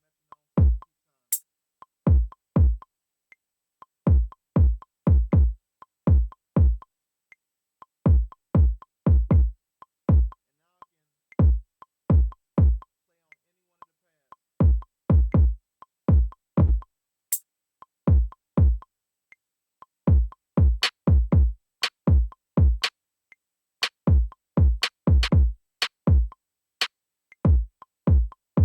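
Deep electronic kick drum samples with a fast falling pitch, triggered from an S2400's pads to play sounds in Maschine. They are hit singly and in quick uneven clusters rather than a steady loop, with a few sharp hi-hat ticks, more of them in the second half.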